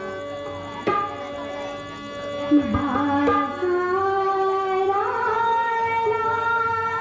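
Bhajan music between sung lines: sustained harmonium notes, with hand-drum strokes about a second in and again around three seconds.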